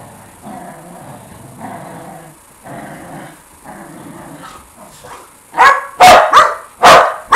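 Shetland sheepdogs play-fighting: repeated low growls, then a quick run of about four loud, sharp barks starting a little past halfway.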